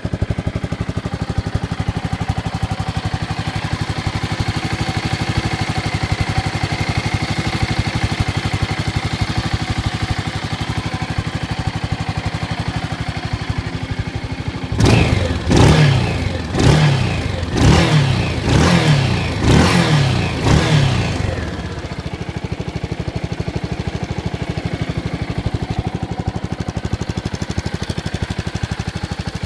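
Yamaha SRX600's single-cylinder four-stroke engine idling steadily while it warms up after winter storage. About halfway through, the throttle is blipped about six times in quick succession, and the revs rise and fall each time before it settles back to idle.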